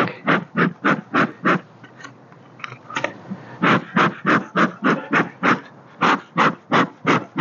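Bee smoker's bellows pumped in quick puffs, about three a second, blowing smoke to drive the honey bees down into the hive. The puffing breaks off for about two seconds shortly after the start, then picks up again.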